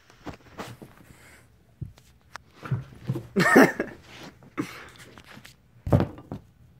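Soft thumps and scuffling on carpet as two kittens play-fight on the stairs, with a brief voice-like sound about halfway through and a sharper thump near the end.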